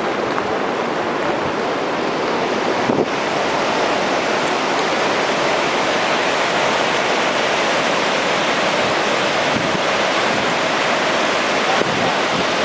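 Rough storm surf breaking on a sand beach, with wind buffeting the microphone: a steady, even rush of noise. A brief knock about three seconds in.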